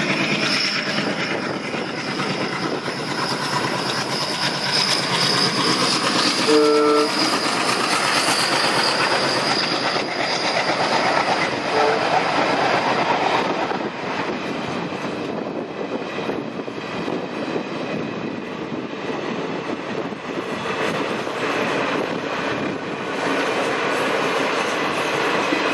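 A long passenger train of about twenty coaches rolling past, wheels clattering over the rail joints, with a brief blast of the diesel locomotive's horn about seven seconds in.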